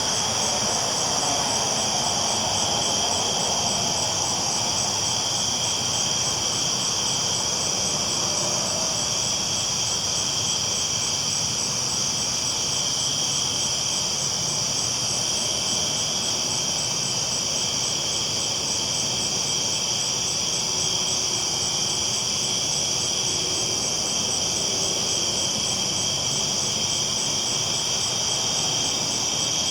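Steady rumble and hiss of a train rolling along the tracks, even and unbroken throughout.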